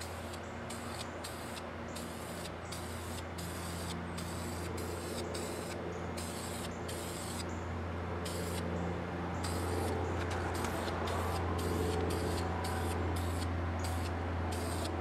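Aerosol spray can of acrylic enamel paint hissing in short bursts one after another, with brief gaps, as it sweeps along a motorcycle frame. A steady low hum runs underneath.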